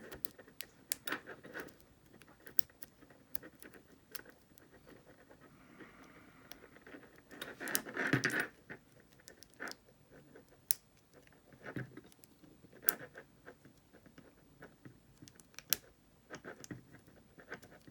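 Lock pick and tension wrench working in the keyway of a Brinks ProMax security padlock: scattered small metallic clicks and scratches as the pins are probed, with a longer stretch of scraping about eight seconds in.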